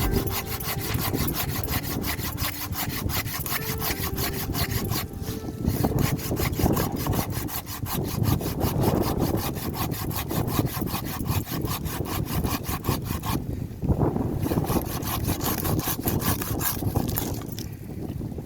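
Hand wood saw cutting through wood in steady, continuous strokes, with a rasping tick of the teeth that eases briefly about thirteen seconds in.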